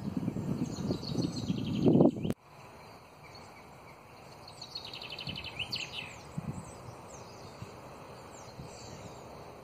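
Low rumbling noise on the microphone for about two seconds, the loudest part, cut off suddenly. Songbirds singing follow, with rapid high trills and short downward-sweeping whistles.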